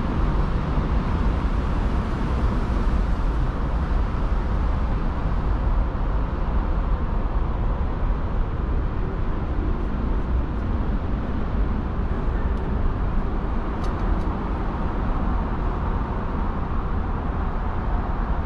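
Steady low rumble of distant city traffic, with a few faint clicks a little past the middle.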